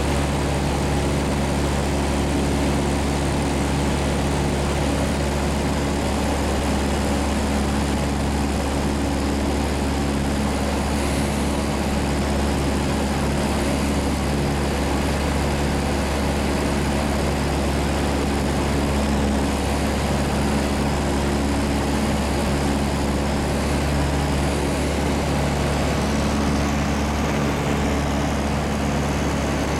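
Single-engine high-wing light aircraft heard from inside the cabin: the piston engine and propeller drone steadily in level flight, a deep hum with a rushing hiss over it.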